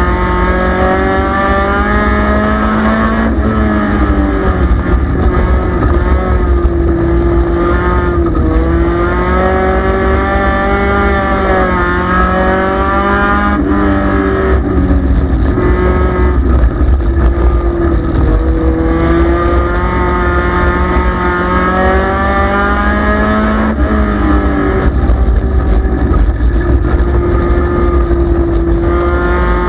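Race car engine heard from inside the cockpit, run hard on a qualifying lap around a short oval. Its pitch climbs along each straight and drops back as the driver lifts for the corners, every five seconds or so.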